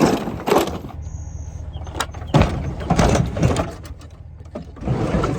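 Footsteps crunching on loose pea gravel, a series of uneven crunches.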